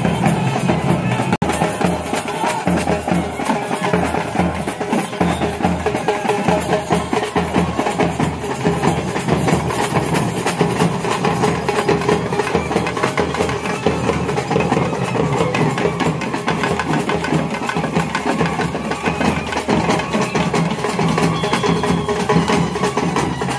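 Loud music driven by fast, steady drumming and percussion.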